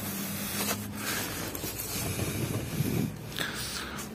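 Clicks, knocks and scraping from handling a car's boot as it is opened, over a steady low hum.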